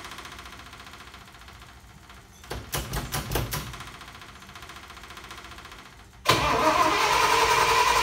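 The International MV446 gasoline V8 in a 1978 Loadstar 1700 truck is started with starting fluid. About a third of the way in it gives a short, uneven burst of cranking and a few firings that die away. Near the end it catches abruptly and keeps running loud and steady.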